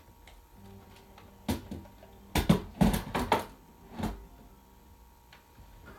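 A series of knocks and clatters from hard objects being handled and set down on a wooden shelf: one knock, then a quick burst of five or six, then a last single knock.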